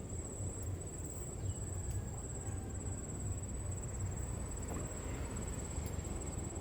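Insect trilling steadily on one high pitch over a low, steady rumble.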